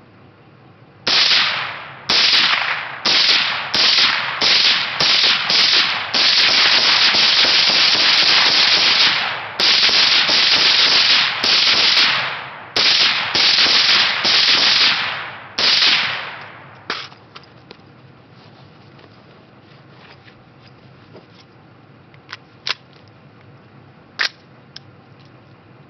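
Suppressed 11.5-inch short-barrelled AR-15 with a YHM Phantom suppressor firing a long string of rapid shots for about sixteen seconds, some so close together that they run into one another. The shooting then stops, and only a few faint sharp ticks follow near the end.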